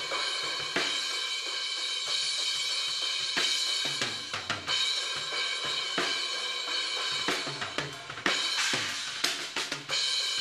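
Drum-kit overhead recording heard only through a soloed, narrow boosted EQ band, so cymbals, snare and kick come through as a thin midrange slice with little low end. The band is swept upward from about 1.3 kHz to 3 kHz to find the room's odd boxy resonance in the overheads.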